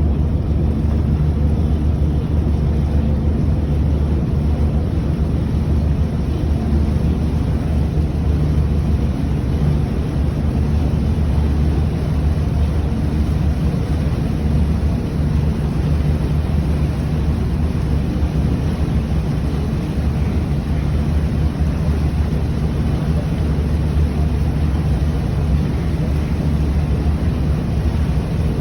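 River tour boat's engine running steadily, a constant low drone with no change in speed.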